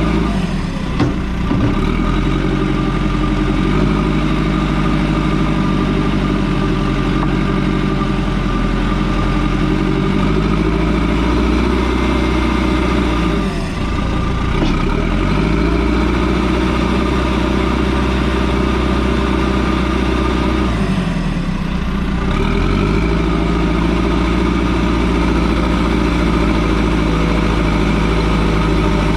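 Excavator's diesel engine running steadily under work. Its note dips and recovers twice, with a sharp knock about a second in.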